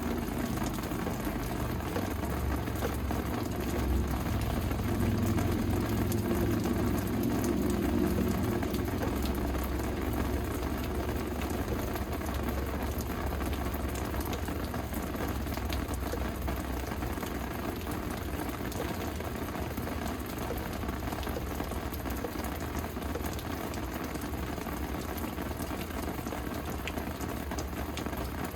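Steady rain falling, heard as an even hiss, over a low rumble that swells from about four to nine seconds in.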